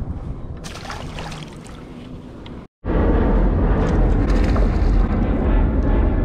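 Wind buffeting the microphone over water at the kayak's side, a moderate hiss that cuts out briefly near the middle, then comes back much louder and deeper; a released fish splashes at the surface.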